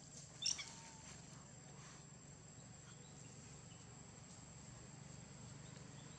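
Faint forest ambience: a steady, high-pitched insect drone, with a brief chirpy call about half a second in.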